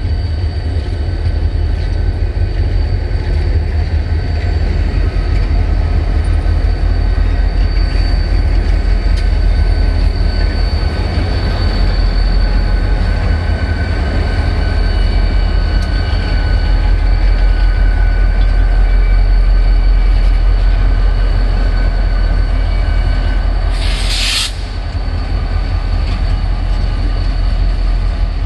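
Freight train hauled by diesel locomotives, including EMD SD60s, passing close by: a heavy, steady rumble with thin steady high tones over it. About 24 seconds in, a brief hiss lasting about a second.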